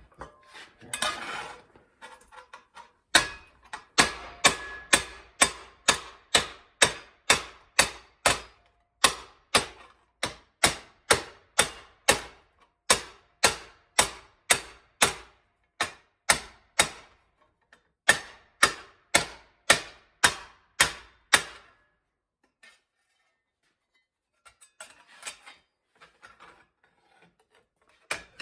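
Sheet steel being hand formed with hand tools: a steady run of sharp metal-on-metal strikes, about two a second, each with a short ring, pausing briefly once and stopping a few seconds before the end.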